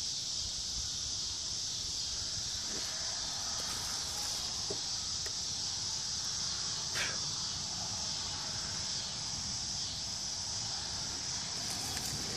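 Steady high-pitched chorus of field insects, an unbroken hiss-like trill, with a few faint ticks and rustles from the plants.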